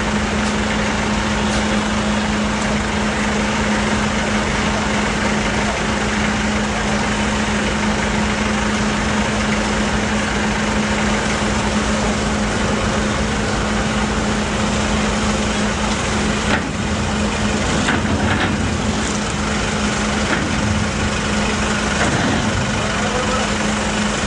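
Ferry engine idling with a steady, unchanging hum over a wash of mechanical noise.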